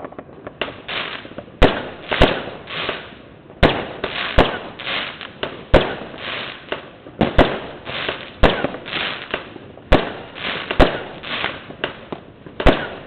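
Fireworks rockets and firecrackers going off: about a dozen sharp bangs at uneven intervals, roughly one a second, each followed by an echoing tail.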